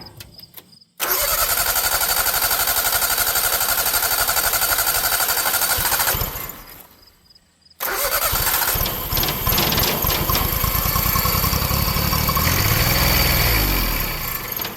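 1988 John Deere 322's Yanmar three-cylinder gas engine cranked by the starter twice: about five seconds of cranking, a pause, then a second crank in which the engine fires and its pitch rises and falls briefly before it dies near the end. It runs only on a shot of ether because no fuel is being drawn from the tank.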